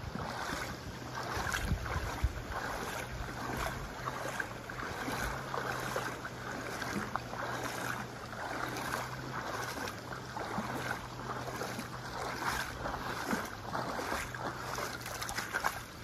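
River water rushing and splashing.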